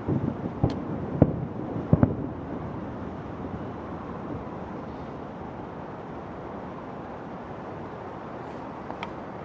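Fireworks exploding: a quick run of sharp bangs in the first two seconds, then a steady wash of noise.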